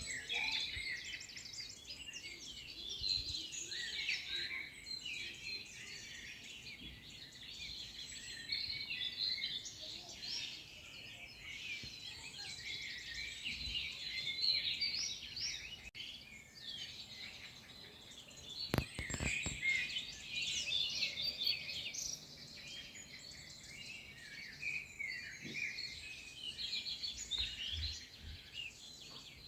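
Many songbirds chirping and singing at once in a dense, continuous chorus. A brief low thud about two-thirds of the way through.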